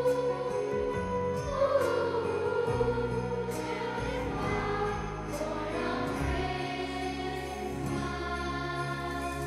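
Children's choir singing together over low sustained accompaniment notes, with a few bright percussive strikes.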